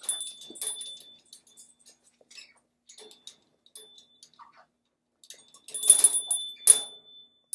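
Clicks and light rattles of a birdcage being handled, with two loud clattering knocks about six seconds in and just under a second later.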